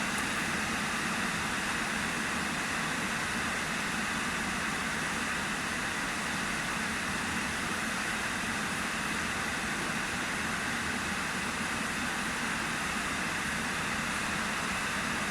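KANTO PM-3477 pantograph engraving machine running, its motor giving a steady, even whirring noise with no rhythm or change in level.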